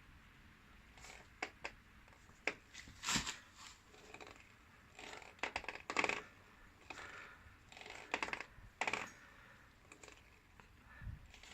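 Irregular sharp clicks from a Kawasaki VN750 Vulcan's shaft final drive, a dozen or so, some in quick clusters. The noise comes from the rear drive's rubber damper, dry where rubber and metal meet.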